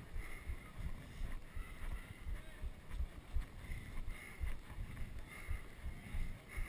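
Low thumping and rumble of wind and jolting on a head-mounted action camera worn by a runner on the move, a few irregular thumps a second.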